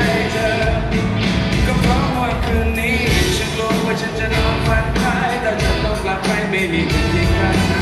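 Live band playing a pop-rock song, with a lead vocal singing over electric guitars and drums.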